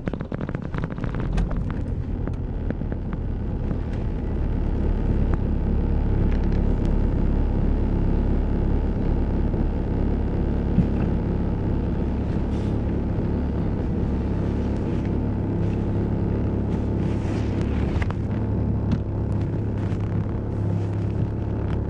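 Audi A4 B5 1.9 TDI four-cylinder turbodiesel idling at about 1000 rpm just after a cold start at −14 °C, heard from inside the cabin. It is rough with irregular knocks for the first couple of seconds, then settles into a steady idle.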